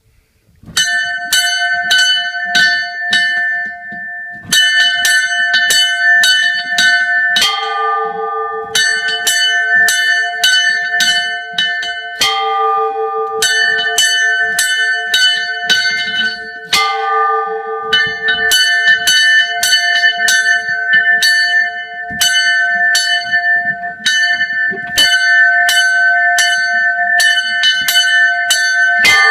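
Two church bells rung by hand: the smaller, higher bell is struck quickly, about two strokes a second, in runs with short pauses. A larger, lower bell sounds single strokes a few seconds apart between the runs.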